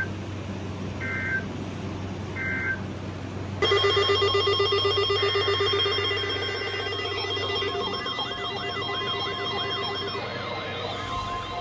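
Electronic warning alarm tones: three short beeps, then about three and a half seconds in a loud steady multi-tone alarm with a pulsing buzz starts. It is soon joined by a fast, repeating rising warble like an electronic siren.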